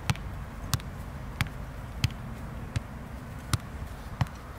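A football being kicked back and forth in one-touch passes between two players: seven sharp thuds of boot on ball, about one every two-thirds of a second.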